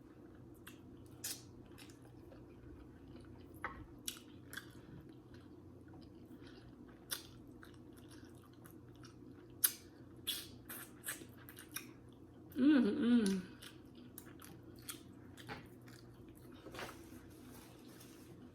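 Close-miked eating: chewing a mouthful of seafood gumbo, with scattered soft mouth and utensil clicks. About two-thirds through comes a short hummed "mmm" of enjoyment.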